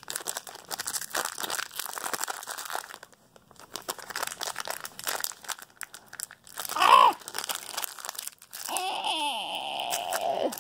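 Stiff plastic-and-card blister pack of blue Loctite threadlocker being twisted and torn open with gloved hands: crinkling and crackling. About seven seconds in comes a short loud grunt, and near the end a long strained yell of effort.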